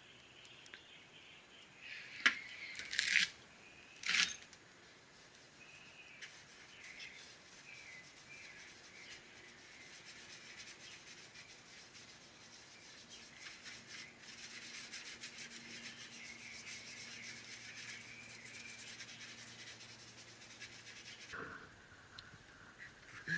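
Hand scraping and rubbing at old paint on a car fender, with a few sharper scrapes in the first few seconds and then lighter, continuous rubbing. Birds chirp faintly in the background.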